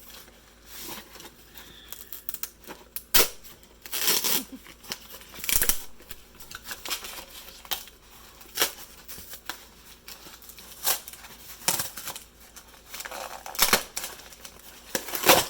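Packaging being opened and handled by hand: tearing and crinkling with a string of sharp clicks and rustles.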